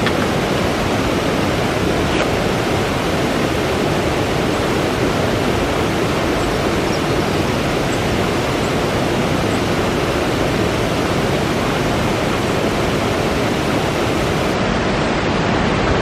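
A rocky stream tumbling over small waterfalls and cascades: a steady rush of water.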